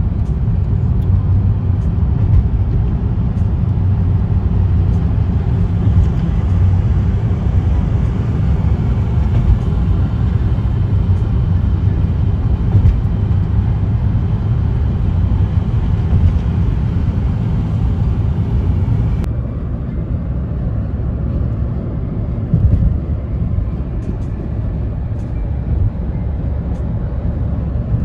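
Steady road and engine noise of a car driving, a low rumble with hiss above it. The higher hiss drops away suddenly about two-thirds of the way through.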